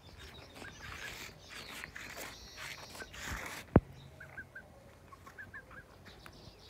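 Aseel chickens calling softly: short high chirps in quick groups of three or four, twice in the second half. A rustling noise fills the first half, and a single sharp click, the loudest sound, comes just before the four-second mark.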